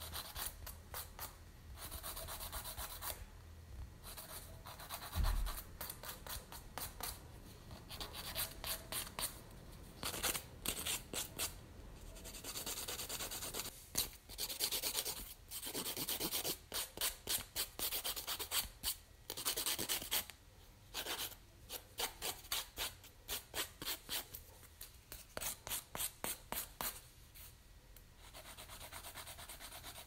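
A fingernail being filed with a nail file: gritty back-and-forth rasping, sometimes a steady rub and sometimes quick runs of short strokes, broken by brief pauses. One low knock comes about five seconds in.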